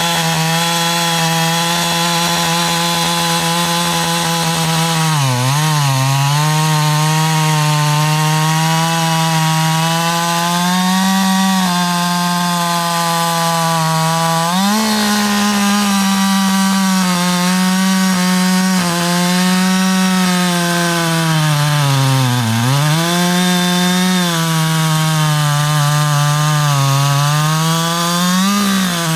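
Husqvarna 560 XP 60 cc two-stroke chainsaw running at full throttle while cutting through a large beech trunk. The engine note stays high and steady but sags twice under load as the chain bites, about five seconds in and again about three quarters of the way through, and picks back up each time.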